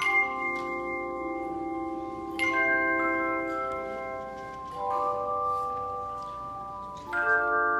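Handbell choir ringing slow chords: a new chord is struck about every two and a half seconds and left to ring and fade before the next.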